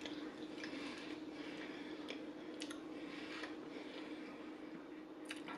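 Close-up chewing of french fries: scattered small mouth clicks and soft crunches over a steady low hum.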